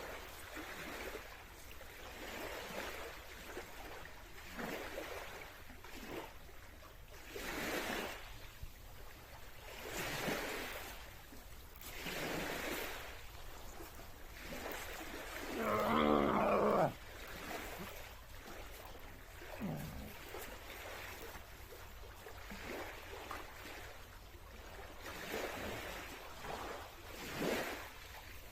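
A man breathing hard in repeated heavy breaths during a freestyle workout, with one loud drawn-out roar about sixteen seconds in.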